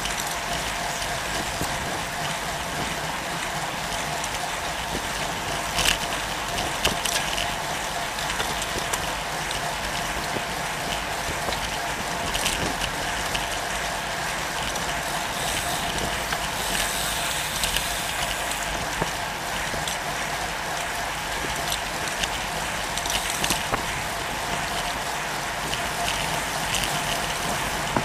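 Road bike rolling on tarmac in a group ride, heard from a bike-mounted camera: steady tyre and drivetrain noise with a freewheel ticking, and a few sharper mechanical clicks.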